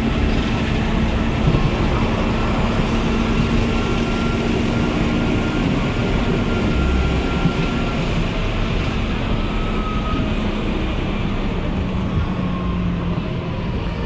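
Electric rack-railway railcar of the Drachenfelsbahn running: a steady rumble with a whine from the drive, the whine falling in pitch in the second half as the car slows into the summit station.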